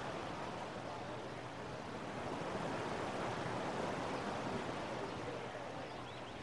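Ocean surf washing onto the beach: a steady rushing that swells a little about halfway through and eases off near the end.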